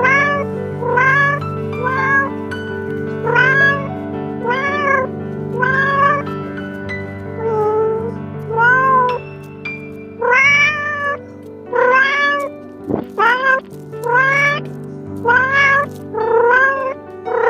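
Kitten meowing again and again, short calls about a second apart, each rising in pitch, over soft background music. A single knock about thirteen seconds in.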